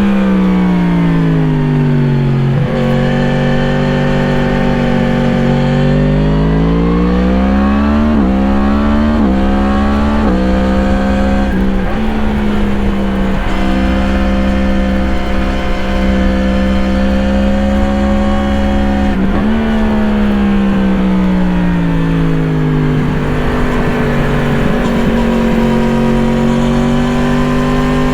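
2017 Yamaha MT-10's crossplane inline-four through an Akrapovič slip-on exhaust, heard onboard while riding. It winds down off the throttle at first, then pulls hard through a few quick upshifts about a third of the way in, holds a steady pitch, drops back off the throttle again and builds revs near the end.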